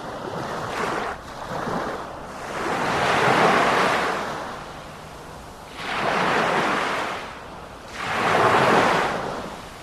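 Sea surf: waves breaking and washing in, the rushing noise swelling and fading every two to three seconds.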